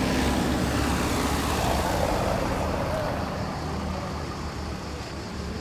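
Road traffic noise: a motor vehicle passes over a steady low hum of traffic, loudest in the first couple of seconds and then slowly fading.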